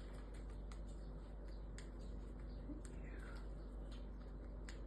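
Cockatiel husking millet seeds with its beak: faint, irregular small cracks and clicks, several a second.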